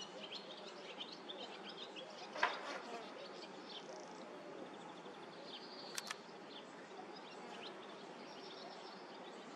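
Small birds chirping repeatedly over a steady outdoor background hiss. A louder, sharp sound comes about two and a half seconds in, and two quick clicks about six seconds in.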